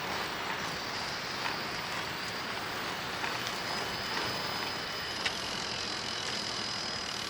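Azub Ti-fly 20 recumbent trike rolling along the road: a steady rush of tyre and wind noise, with a faint high whine joining about halfway through and a sharp click just after five seconds.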